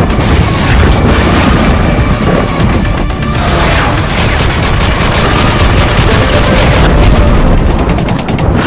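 Rapid automatic gunfire and booms as intro sound effects, laid over loud music. The gunfire comes thickest in the second half.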